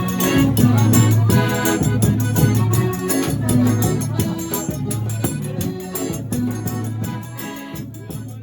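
Forró music with accordion, a steady bass beat and rattling high percussion, fading out gradually over the last few seconds.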